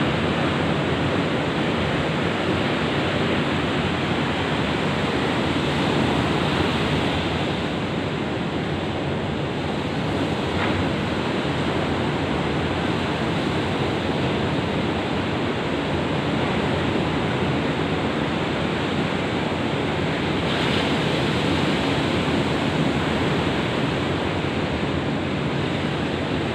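Ocean surf: waves breaking and washing on the shore in a continuous rushing noise, swelling and easing only slightly.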